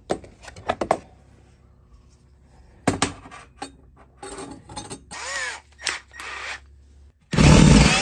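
A few metal clicks and knocks as a Forstner bit is fitted onto an extension, then, about seven seconds in, a cordless drill starts boring a Forstner bit through the wall, loudly.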